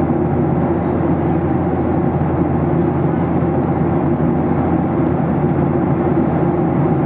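Steady cabin noise of a Boeing 737-800 in flight at high altitude: a constant low rumble of airflow and its CFM56-7B turbofan engines, heard from inside the cabin at a window seat.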